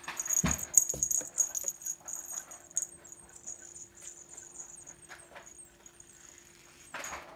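Small bell on a cat toy jingling as the toy is handled, loudest in the first two seconds and then fading. There are a few soft thumps in the first second.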